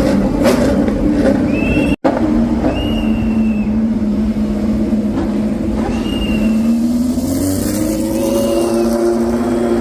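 Racing car engines running with a steady drone, the pitch climbing after about seven seconds as the revs rise. There is a brief cut in the sound about two seconds in.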